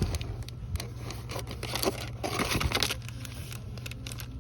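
Handling noise of packaged items being picked up and moved: rustling, crinkling and light knocks, louder about halfway through, over a steady low hum.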